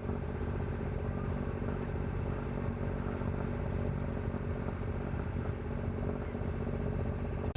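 Sailboat's inboard engine running steadily while the boat motors along.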